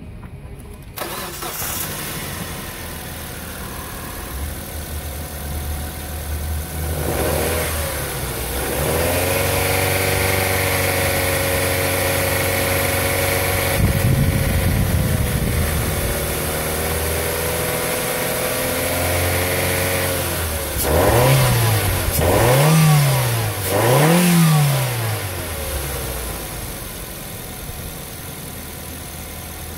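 A 2005 Mazda 2's four-cylinder petrol engine starts about a second in and idles. It is then held at a raised speed for about ten seconds, revved sharply three times, and settles back to idle.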